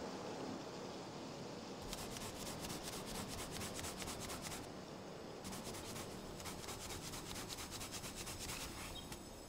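An eraser rubbed fast back and forth on a sheet of drawing paper, in two runs of rapid strokes: the first starts about two seconds in, the second follows a short pause and stops near the end.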